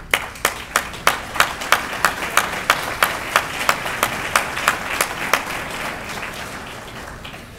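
Audience applauding, with many individual claps standing out, gradually dying down over the last couple of seconds.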